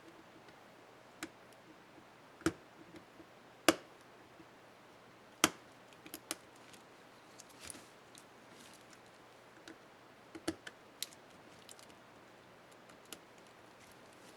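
Irregular small plastic clicks and taps of a laptop keycap and its scissor clips being handled and snapped onto the keyboard, three of them sharper and louder than the rest, over a faint steady hum.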